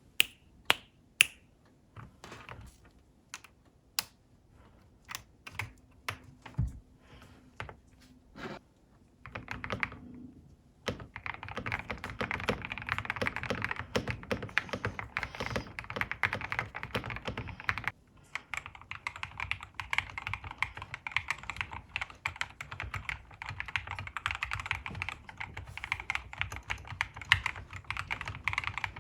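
Mechanical keyboard keys being pressed: scattered single key presses at first, then fast continuous typing from about eleven seconds in. After a brief pause near eighteen seconds the typing resumes with a thinner, higher clack.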